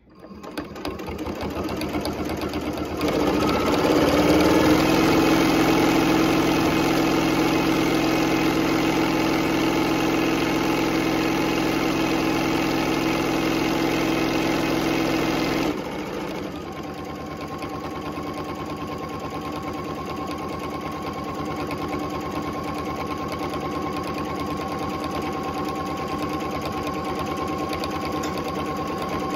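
Electric sewing machine stitching through binding and several layers of fabric, building up to full speed over the first few seconds and running fast and steady, then slowing abruptly about 16 seconds in to a quieter, steady lower-speed run.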